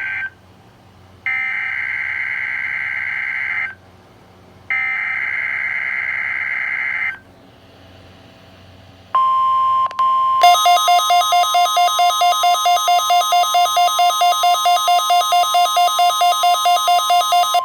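NOAA Weather Radio Specific Area Message Encoding (SAME) data bursts: the tail of one, then two more of about two and a half seconds each, a warbling digital screech. After a pause a steady 1050 Hz weather alarm tone starts, the tone that switches on alert receivers, and about a second later a buzzy electronic beeping, about four beeps a second, sounds over it for the rest of the test.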